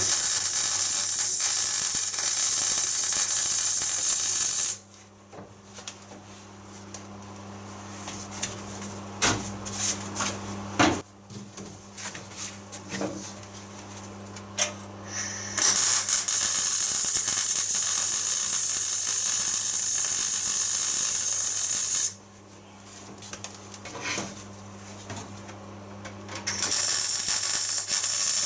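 MIG welder laying plug welds on a Mini's steel floor pan: the arc gives a steady crackling hiss with a low electrical hum. It runs in three bursts, with quiet gaps of light clicks and knocks between them.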